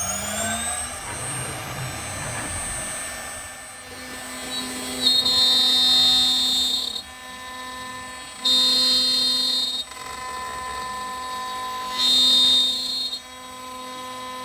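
CNC router spindle spinning up with a rising whine, then running steadily as the bit cuts into a walnut board, growing louder and higher in three stretches of a second or two each.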